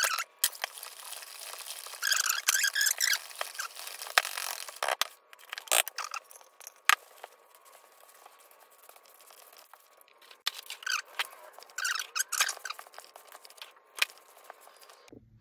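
Hands mixing cookie dough in a bowl: crumbly scrunching and rubbing in bursts as flour is worked into the wet mixture, with a few sharp clicks along the way.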